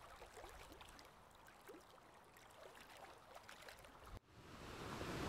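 Near silence: faint crackling background noise with scattered small ticks. It cuts out completely for a moment about four seconds in, then gives way to a steady faint hiss.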